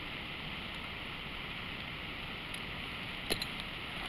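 Steady background hiss with no speech, and one short metallic click about three seconds in as a small socket wrench is worked on the carburetor's float-bowl nut.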